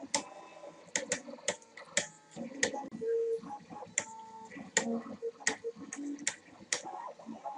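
Motorised drawing arm working: its stepper motor whines in short steady tones that jump from pitch to pitch as the pen carriage moves back and forth. Irregular sharp clicks come one to three times a second.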